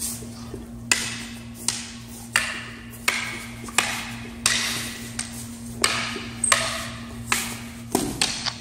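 Training machetes and wooden sticks clacking together in a partner flow drill, about three sharp, slightly ringing hits every two seconds, with a steady low hum behind them.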